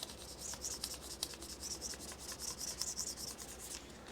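Razor blade scraping baked-on, crusty grease and grime off a metal part in quick, repeated strokes.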